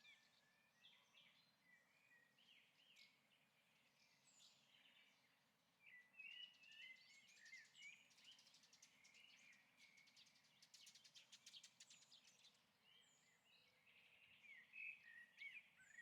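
Faint birds chirping, a stock birdsong sound effect: many short chirps and whistled glides, with a fast rattling trill from about seven to twelve seconds in.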